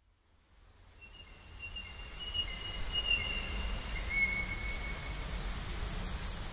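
Outdoor nature ambience fading in: a low rumble under two long, steady, high whistling tones, then from about six seconds in a rhythmic high chirping of insects, about three pulses a second.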